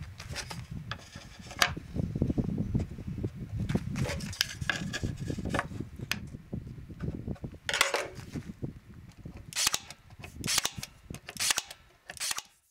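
Plywood drawer fronts handled and set in place, with wooden knocks and rubbing, then a Ryobi 18V AirStrike 18-gauge cordless brad nailer firing single sharp shots several times in the second half as the fronts are nailed on.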